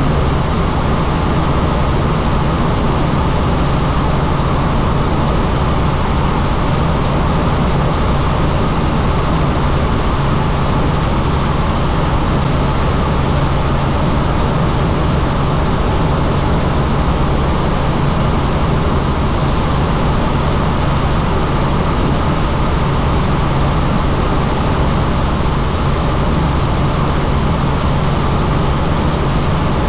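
Helicopter in flight: a loud, steady drone of rotor and engine with a constant low hum, unchanging throughout.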